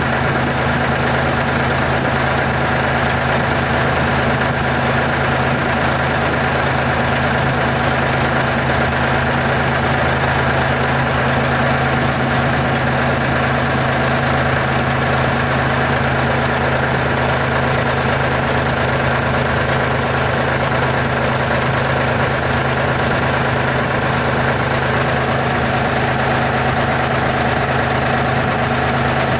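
Diesel engine of a Terex R-35 rigid haul truck idling steadily, with an even, unchanging tone.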